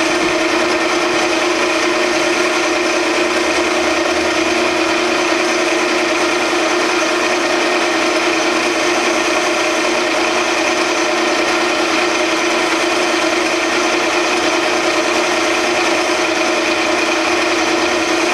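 Grizzly G0602 10x22 metal lathe running steadily under power feed, its motor and gears giving an unbroken hum with a steady tone, while a scissor knurler rolls a checkered pattern into aluminum stock with a faint rasping rub.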